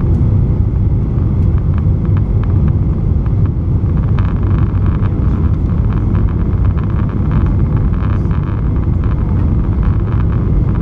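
Boeing 737-900ER cabin noise on approach, heard from a window seat over the wing: a steady low rumble of the CFM56 engines and rushing air, with faint irregular clicks and rattles above it.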